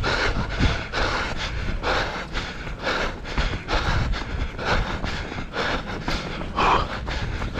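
A runner's heavy panting, a breath about every half second, over a steady low rumble.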